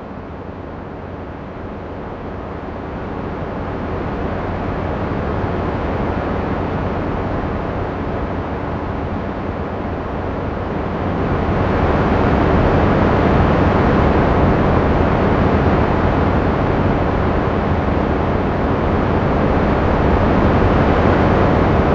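AI-generated Martian wind: a steady, deep rushing noise like a windstorm. It grows louder a few seconds in and again about eleven seconds in.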